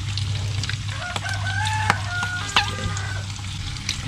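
A rooster crows once, a call lasting about two seconds, over the crackle and pops of breaded prawns frying in hot oil and a low steady hum.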